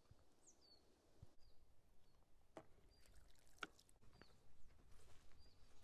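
Near silence: a few faint, short high chirps of small birds, with a few soft clicks about halfway through.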